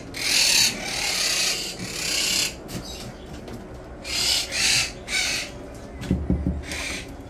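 Parrots giving a string of harsh, raspy screeches, about seven short calls with gaps between them. A low rumble comes in around six seconds in.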